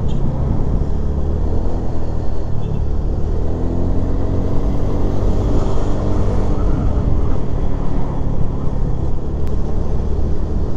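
Motorcycle engine running while riding, its pitch climbing as it speeds up in the middle, over a steady low rumble.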